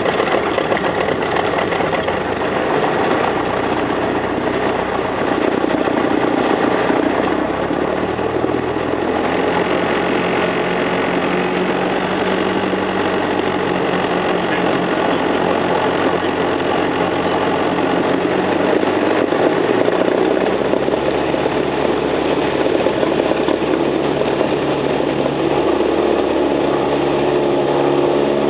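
Cessna 172R's four-cylinder Lycoming piston engine and propeller running steadily, its pitch shifting a few times.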